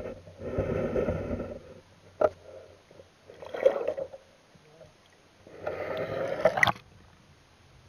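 Water sloshing and gurgling against a small boat's hull, heard muffled from an underwater camera: three bursts about a second long, with a sharp knock about two seconds in.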